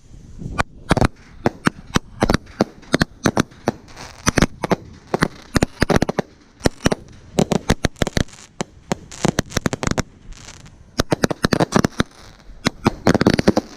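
Fireworks going off in rapid, irregular volleys of sharp bangs and crackles, bunched in clusters with short lulls between them.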